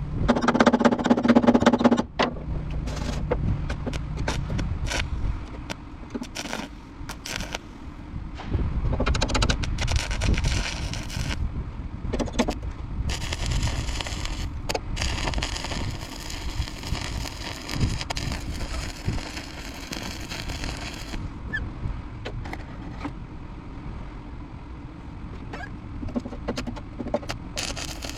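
Welding arc crackling and hissing in uneven stretches of sharp pops, with a louder humming tone in the first two seconds.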